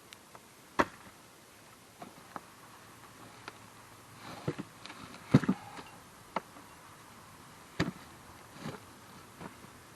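Scattered sharp knocks and clunks of wooden firewood blocks being handled and set down, a few seconds apart, the loudest about five seconds in.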